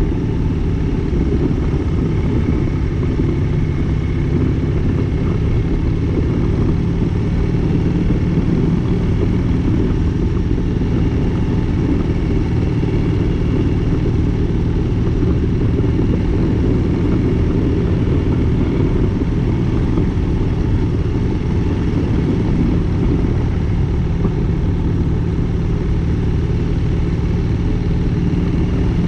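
Motorcycle engine running at a steady speed while riding, a constant low hum over a dense rumble, with no change in pitch.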